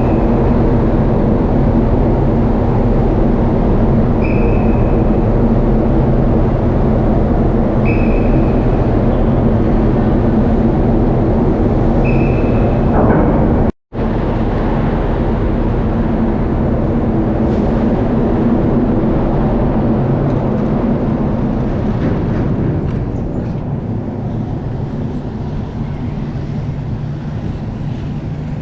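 A vehicle engine's steady low hum, with a short high beep repeating about every four seconds during the first half.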